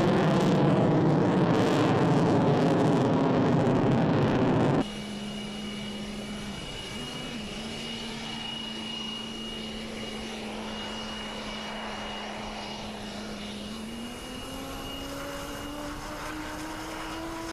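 Lockheed Martin F-22 Raptor's twin Pratt & Whitney F119 jet engines: first a loud jet roar with slowly falling pitch as the fighter climbs past, then, after a sudden cut, the quieter steady turbine whine of the jet on the runway, which rises in pitch about fourteen seconds in.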